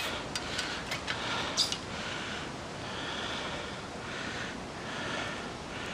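A man breathing heavily close to the microphone, soft noisy breaths coming about once a second, with a few light clicks and knocks in the first two seconds as he climbs a ladder.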